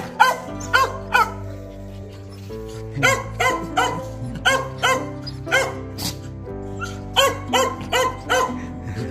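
A small dog barking in quick runs of high-pitched yaps, about three a second, with short pauses between runs. Background music with held notes plays underneath.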